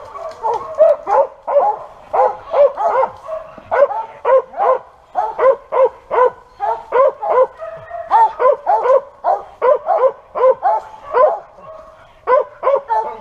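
Hunting dogs barking steadily and rapidly, about two to three barks a second with a few short lulls. This is typical of squirrel dogs barking treed at a squirrel up in the trees.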